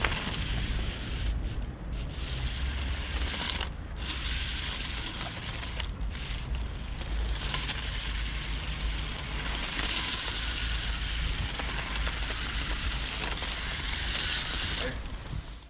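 A LEGO Technic 8366 Supersonic RC car driving on hard plastic tyres over stone paving, making a continuous scraping, rattling grind of plastic wheels on stone. It eases off briefly a few times, then grinds harder near the end as it comes close.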